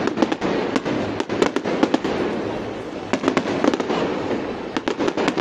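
Fireworks display going off: clusters of rapid sharp bangs and crackles, at the start, about a second in, again around three seconds and near the end, over a steady rumbling wash of bursts.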